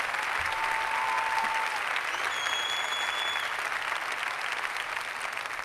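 Applause, a steady round of clapping, with two short steady tones over it: a lower one near the start and a higher one in the middle.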